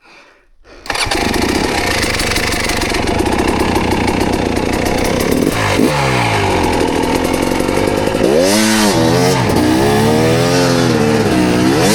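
Off-road dirt bike engine starting abruptly about a second in and running loud, then revved up and down repeatedly in rising and falling sweeps as the rider works the throttle.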